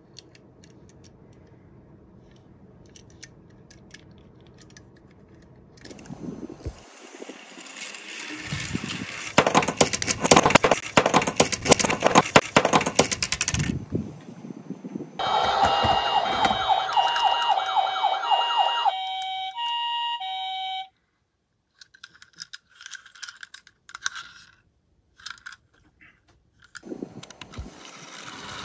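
A die-cast toy police car rolling down a sloped board, its small wheels making a dense rattle that builds for several seconds. This is followed by a two-tone emergency siren stepping between a high note and a low note for about six seconds. Near the end another toy car starts rattling down the slope.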